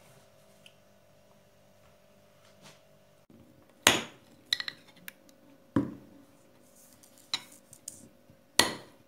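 A metal spoon clinking and knocking against a glass dish and a saucepan while margarine is scooped into the pan. There are three sharp knocks, the first a little under four seconds in and then about two seconds apart, with lighter clicks and scrapes between them. Before the knocks there is only a faint hum.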